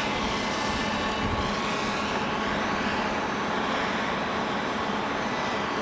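Brushless electric motor and propeller of a scratchbuilt RC plane running steadily in flight: an even drone with a faint steady whine.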